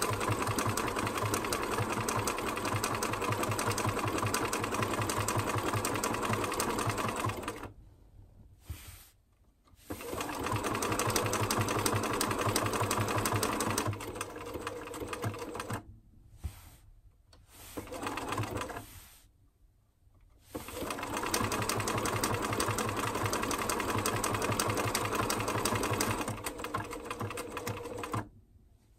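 Bernina 1230 sewing machine (Riccar RCM 1230 badge) stitching a decorative pattern, with the rapid rattle of the needle mechanism. It sews in several runs: a long run that stops about seven and a half seconds in, shorter runs with pauses in the middle, and a last long run that stops near the end.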